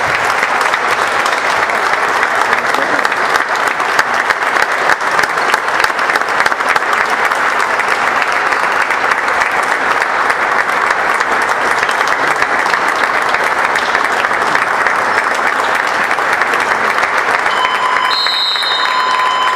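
Indoor arena crowd applauding steadily in a sustained ovation. A steady electronic beep starts near the end.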